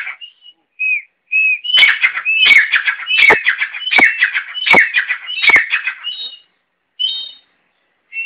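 A pet grey francolin (tetar) calling: a few short whistles, then from about two seconds in a loud series of ringing whistled notes at an even beat, roughly one every three-quarters of a second, tapering to a few softer whistles near the end.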